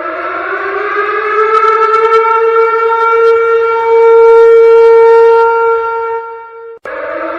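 A siren winding up in pitch over about two seconds, then holding one loud, steady wail. It cuts off abruptly near the end and starts winding up again.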